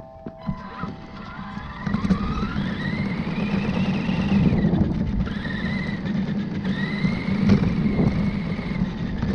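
Radio-controlled truck's motor and drivetrain whining as it is driven, rising and falling in pitch three times as it speeds up and slows, over a steady rumble from the wheels and gears.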